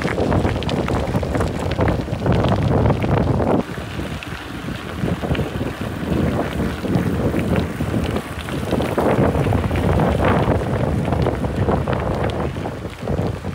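Loud wind buffeting the microphone, a rumbling roar that swells and eases in gusts, with a brief lull about four seconds in.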